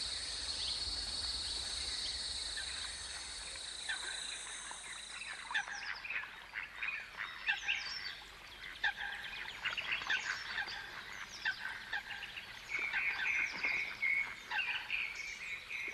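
Wild ambience: a steady high insect trill for the first five or six seconds, then a scatter of short bird calls and chirps, with a denser run of calls in the last few seconds.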